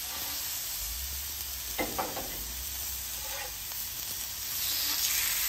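Raw chicken breasts sizzling in hot oil on a flat-top griddle: a steady frying hiss that grows a little louder near the end.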